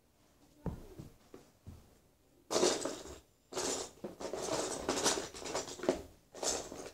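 A few light clicks of plastic Lego bricks, then loose bricks rattling and clattering in bursts as a hand rummages through the plastic tub of Lego, starting about two and a half seconds in.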